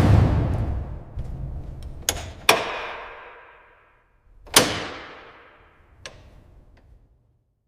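A series of heavy thuds, each followed by a long echoing fade. There is a loud one at the start, two close together about two seconds in, another loud one about four and a half seconds in, then two faint clicks.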